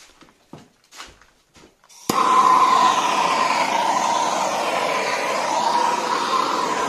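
Handheld gas torch lit with a sharp click about two seconds in, then burning with a steady hissing rush as its flame is swept over freshly poured epoxy resin to pop air bubbles. A few faint handling clicks come before it lights.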